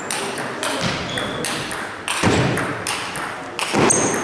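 Table tennis ball clicking back and forth in a rally: sharp pings of celluloid-type ball on paddle and table, about three or four a second, over a murmur of spectators.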